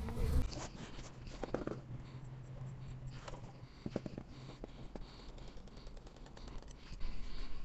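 Quiet scratchy rustling of cloth being cut with scissors, with a few soft snipping clicks.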